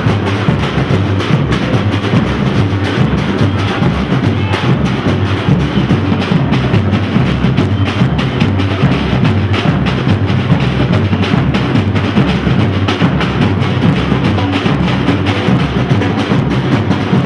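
Batucada: a samba drum ensemble playing loud and without a break, with bass drums holding a steady beat under dense, fast stick and hand-drum hits.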